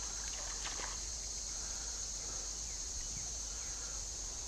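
Steady, high-pitched evening chorus of insects, with a few faint scattered sounds in the first second.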